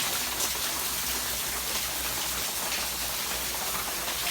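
Steady rain from Hurricane Irma falling and splashing on outdoor surfaces, a constant hiss with no break.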